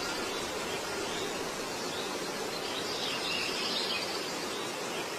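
Steady outdoor ambience of a paved city square, with faint high chirps twice.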